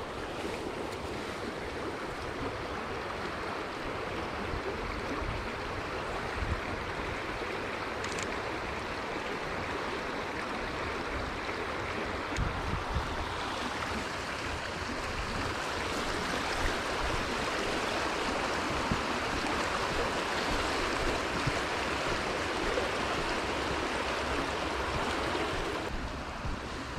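Stream water rushing steadily, a little louder in the second half.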